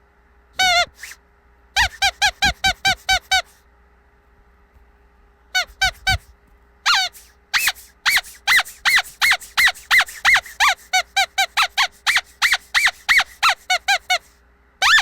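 Squeaky dog toy squeezed over and over, giving short high squeaks in quick runs of several a second, with a pause of a couple of seconds between runs.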